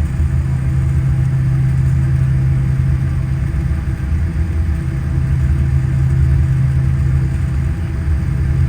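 Steady low drone of an airliner's jet engines at low power, heard from inside the cabin.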